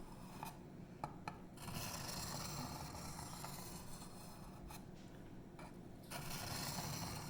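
Emerson Mini A100's 154CM knife blade stroked across a diamond sharpening stone, a rasping scrape repeated in strokes, with two short pauses and a couple of light clicks about a second in. These are the extra swipes taken once a burr has been raised on the edge.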